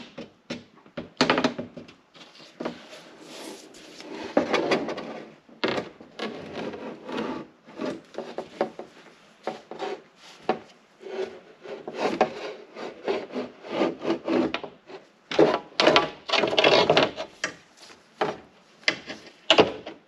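Porsche 944 door window glass being worked into the door by hand, scraping and rubbing against the rubber seals and window tracks, with irregular knocks and bumps.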